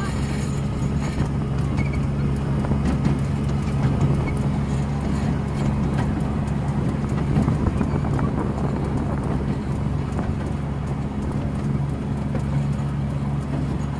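Miniature park train running steadily, heard from on board an open carriage: a low, even engine drone with a rumble and light clicking from the wheels and carriage.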